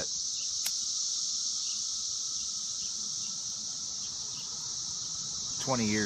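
Steady chorus of 17-year periodical cicadas, a continuous high-pitched drone, with one light click about half a second in.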